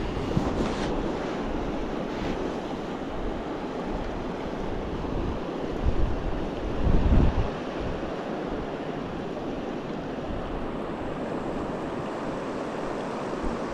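Steady rush of river water, with wind buffeting the microphone in two low gusts about six and seven seconds in.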